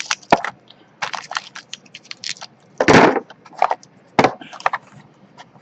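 Items and packaging being handled: a series of short clicks, taps and crinkles, with one louder rustle about three seconds in.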